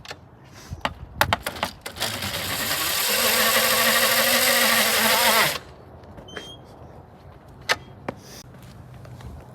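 A tyre driven by a 3,000-watt electric motor spinning in a burnout. A few clicks come first, then about three and a half seconds of loud, building tyre-spinning noise with a wavering whine, cut off suddenly.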